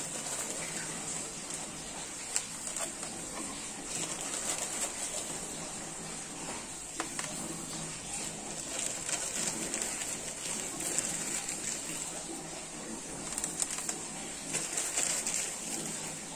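Small aquarium pebbles being spread over the potting mix of a potted plant, with occasional light clicks of stone. A dove coos in the background over a steady high hiss.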